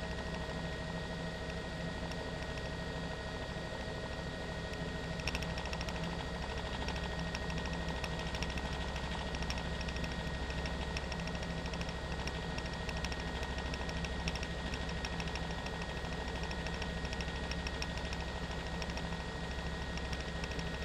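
News helicopter's engine and rotor noise heard from on board: a steady mechanical drone with a low hum and a few constant whining tones, with faint rapid ticking joining in about five seconds in.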